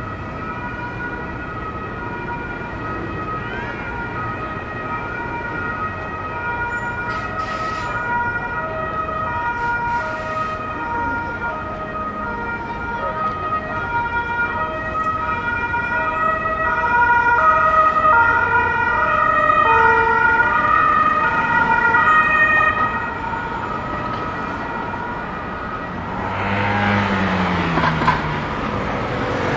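An emergency vehicle's two-tone siren alternating between two pitches over street traffic. It grows louder, peaks about two-thirds of the way through, then stops. Near the end a large vehicle passes close by with a falling engine note.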